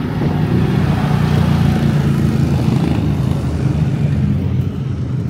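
A motorcycle engine running at low revs as the bike rides slowly past. The engine sound swells over the first couple of seconds and then eases off slightly.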